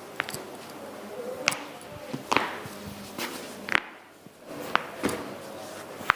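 Joints cracking under chiropractic adjustment: a series of about seven sharp, separate cracks and knocks, with a short quiet gap about four seconds in.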